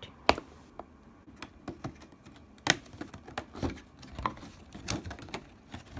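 Clear plastic protective film being picked at with fingernails and peeled off: irregular sharp clicks and crackles of plastic, the loudest a moment after the start and another near the middle.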